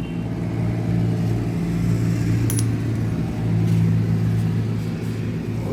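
Steady low mechanical hum, like an engine running, with a light metallic click about two and a half seconds in.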